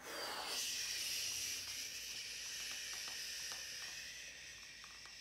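A long breathy "shhh" hiss, imitating the roar of a hot-air balloon's burner. It holds steady for about three seconds, then fades out.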